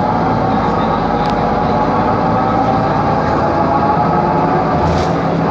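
Mercedes-Benz Conecto G articulated bus under way, heard from inside the cabin: a loud, steady running noise with a whine from its ZF differential, which is faulty and noisy. A couple of faint clicks come through about a second in and near the end.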